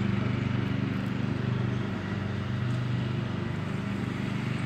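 An engine running steadily at low speed, a constant low hum with a fast, even pulse.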